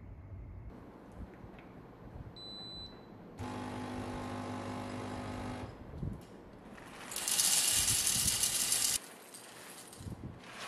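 Espresso machine with a built-in grinder: a short high beep, then a steady electric hum for about two seconds, then a loud hiss for about two seconds that cuts off suddenly.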